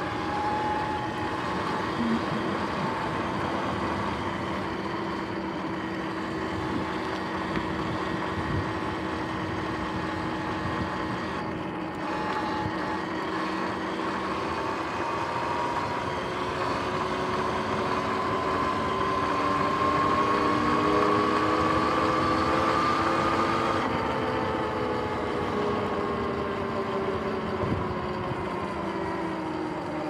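Sur-Ron X electric dirt bike on the move: a steady motor and drivetrain whine over tyre and wind noise. The whine rises in pitch about halfway through as the bike speeds up, then falls as it slows toward the end.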